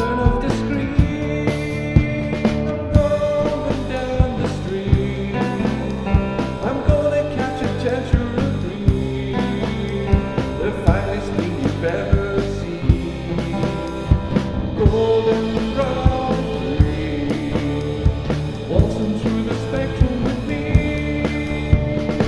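Rock music with guitar and a steady drum-kit beat.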